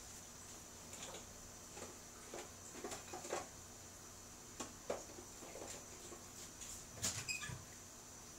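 Chicken adobo simmering under a glass lid: faint, irregular pops and crackles of the bubbling sauce, a few at a time, over a steady faint hiss.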